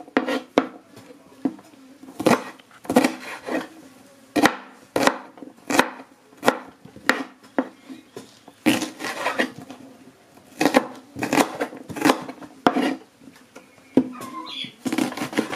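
Large kitchen knife chopping a red onion on a wooden chopping board: a run of sharp, irregularly spaced knocks of the blade hitting the board, roughly two a second.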